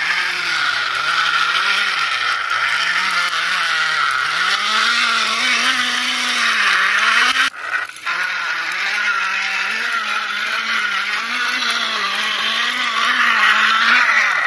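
Car engine sound running steadily as a toy ambulance is pushed along, its pitch rising and falling gently. It breaks off briefly about halfway through, then goes on.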